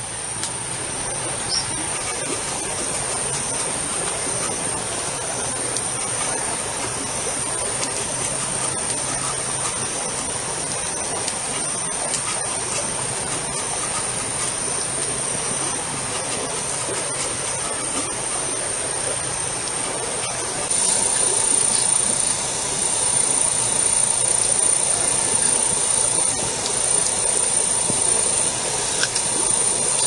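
Forest ambience: a steady, high-pitched insect drone over an even hiss. About two-thirds of the way in, a second, louder buzzing insect chorus joins and carries on.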